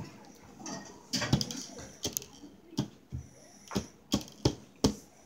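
Sticky homemade slime squeezed and pulled in the hands, making sharp, irregular clicks and smacks, about nine of them, with the loudest a little after one second in and again near the end.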